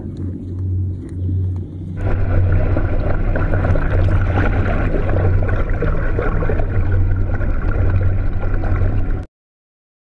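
A low pulsing hum, then from about two seconds in the dense rush and crackle of water heard through an underwater camera, over a steady low hum; it cuts off abruptly about a second before the end.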